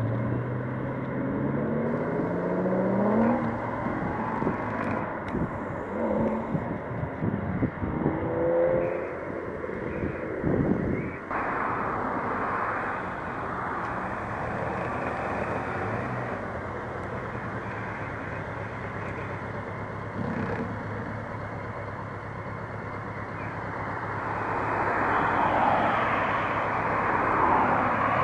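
Car engines revving as cars pull away one after another, each rising in pitch through the gears. Steadier engine and road noise follows a sudden change about eleven seconds in, and an engine builds up near the end.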